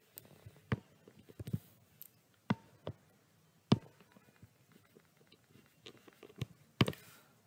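Stylus tapping and sliding on a tablet screen during handwriting: a scatter of sharp clicks, about six of them prominent, with fainter ticks between.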